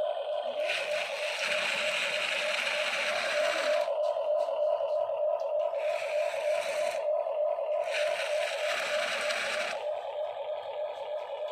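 Small electric motor of a remote-control toy excavator or truck whining steadily, with three scraping, hissing stretches of one to three seconds each as it works.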